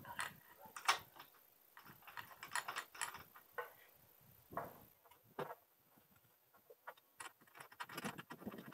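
Light metallic clicks, taps and rattles of solar-panel mounting clamps being handled and slid into their rail at irregular intervals, the sharpest about a second in, with a hex key put to a clamp near the end.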